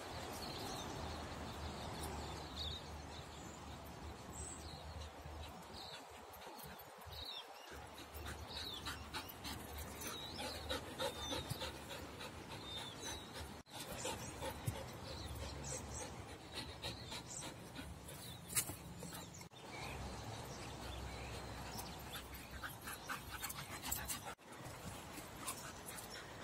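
A dog panting, with scattered light ticks.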